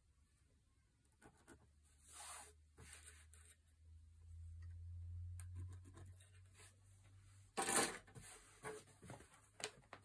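Faint scratching of a pen drawing a seam line on fabric, with soft rustles as the fabric pieces are handled on the table; a short, louder rustle comes about eight seconds in.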